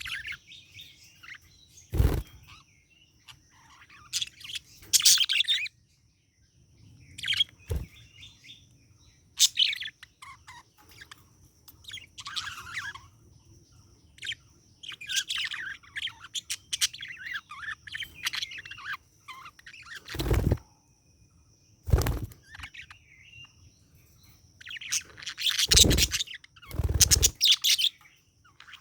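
Pet budgerigar chirping and chattering in short bursts of high, warbling notes. Several sharp thumps cut in among the chirps.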